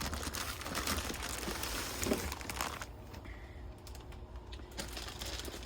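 Plastic packaging crinkling and rustling, with many small clicks and taps, as items are handled out of a box. It goes quieter for a couple of seconds past the middle, then the rustling resumes.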